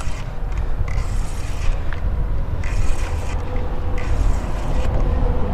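Spinning fishing reel cranked in short spurts during a fight with a hooked fish, over heavy wind rumble on the microphone.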